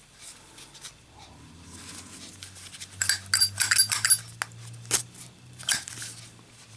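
Small metallic clinks and clicks from a Zippo lighter's metal case being handled. A cluster of ringing clinks comes about three seconds in, and single clicks follow near the end, over a faint low hum.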